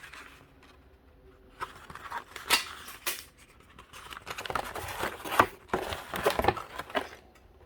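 Rustling, scratching and sharp clicks of packaging being handled and turned over. The sounds are sparse at first and come thicker and louder after about four seconds.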